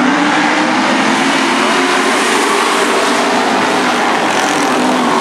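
Engines of a pack of pure stock race cars running together. It is a loud, continuous drone, with several engine notes wavering up and down over one another.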